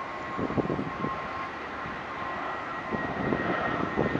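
Airbus A320 airliner on landing approach passing overhead: a steady jet engine hiss with a faint high, even whine, mixed with irregular low rumbles.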